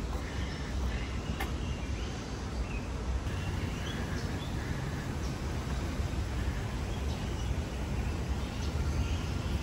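Outdoor city-park ambience: a steady low rumble of distant traffic with faint, scattered bird chirps.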